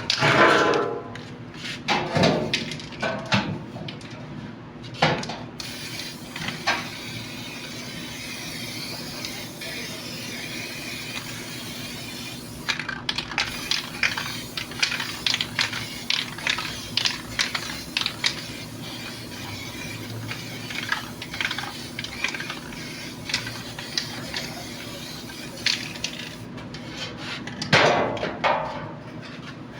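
Hand tools clinking and knocking irregularly on metal air-conditioner parts, over a steady hiss through most of the stretch.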